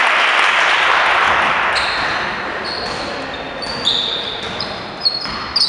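Crowd noise in a gymnasium that fades over the first two seconds, followed by basketball shoes squeaking repeatedly on the hardwood court as players run and cut.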